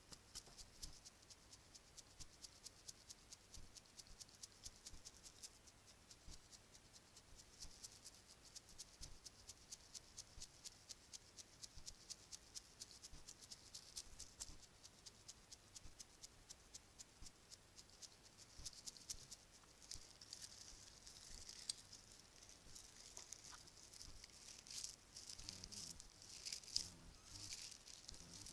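ASMR tapping: quick, light clicks of tapping on a small hard object, several a second. Near the end they grow louder and more irregular, with a rattle.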